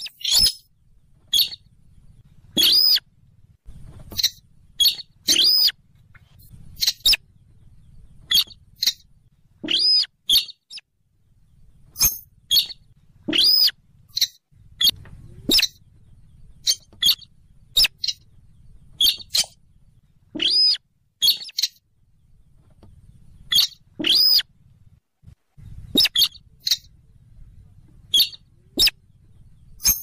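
Buff-banded rail (weris / sintaran sawah) calling over and over, a lure-call recording. The calls are short and sharp, about one a second at uneven spacing, sometimes two in quick succession, with a faint low background rumble between them.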